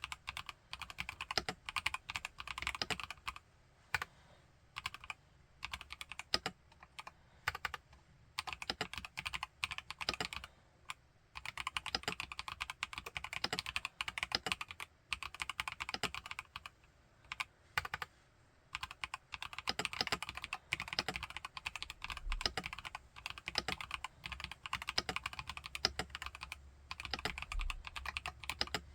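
Typing on an IQUNIX Q66 mechanical keyboard fitted with TTC Holy Panda tactile switches. Fast runs of keystrokes are broken by brief pauses, with a few slower single presses in between.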